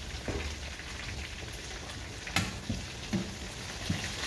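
Curry chicken wings frying in oil in a skillet, a steady crackling sizzle, with a few sharp clicks and knocks of tongs against the pan as the wings are turned.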